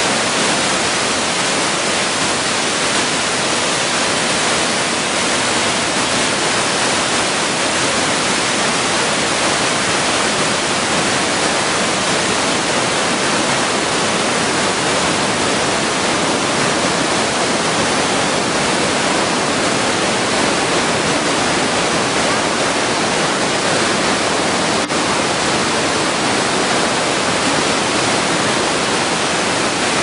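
Waterfall and its white-water cascade rushing loudly and steadily, a dense, unbroken hiss of falling water.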